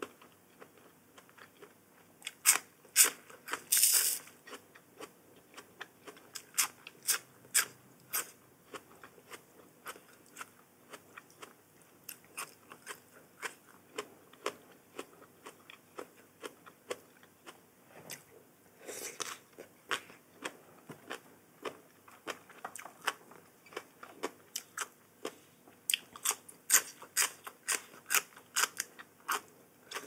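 Close-miked eating: crisp food being bitten and chewed, a run of many short crunches, with louder bites about three seconds in and again around the middle.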